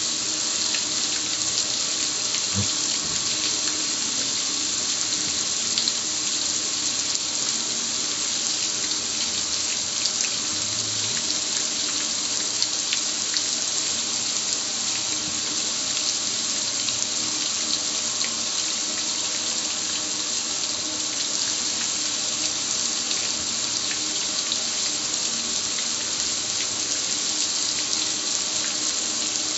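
A spray of water hitting the metal lid of a gas grill steadily, splashing and running off the hood and control panel.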